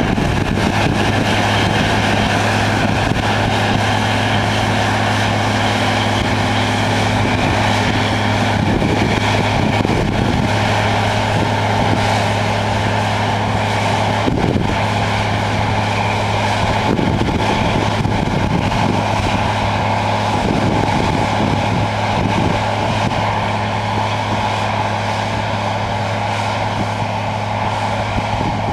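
Combine harvester working through a crop of oilseed rape: its engine and threshing machinery run as a loud, steady drone with a strong low hum.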